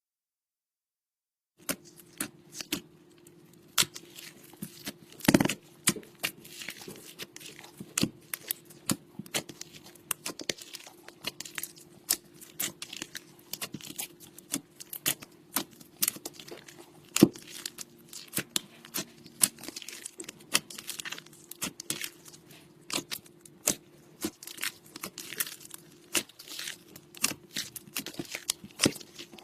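Slime being mixed and kneaded by hand, giving an irregular run of sticky clicks and pops, over a faint steady hum.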